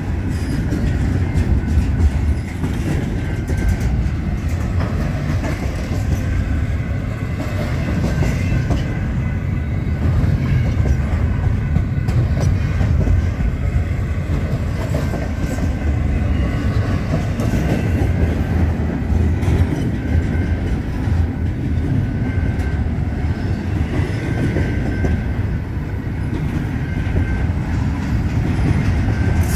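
Double-stack intermodal container cars of a long freight train rolling past at close range: a steady low rumble with the clatter of steel wheels on the rails.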